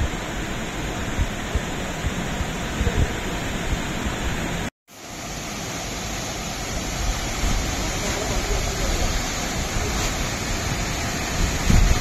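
Waterfall and cascading mountain stream rushing in a steady, even roar, with wind buffeting the microphone in low gusts. The sound drops out for a moment about five seconds in at an edit and fades back up.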